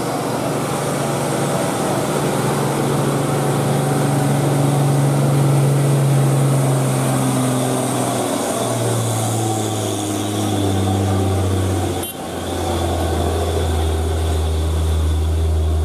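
Hino 500 dump truck's diesel engine labouring up a steep incline, a steady heavy drone whose pitch drops in steps, once about halfway through and again a little later, settling into a deeper note near the end.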